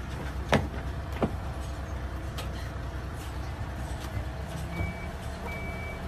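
Steady low rumble of a horse trailer or horse lorry on the move, heard from inside the horse compartment. Two sharp knocks come in the first second and a half, and short high beeps begin near the end.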